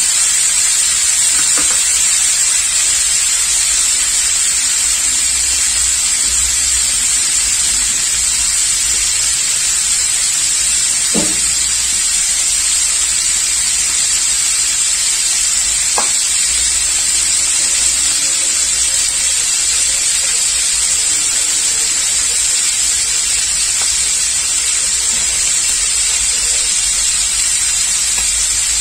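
Pieces of scad fish frying in hot oil in a wok: a steady sizzle, with a couple of brief pops.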